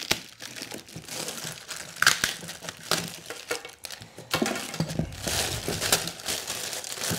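Thin black plastic wrapping crinkling and tearing as it is snipped with scissors and pulled off a cardboard box, with irregular crackles that thicken into steadier rustling about four seconds in.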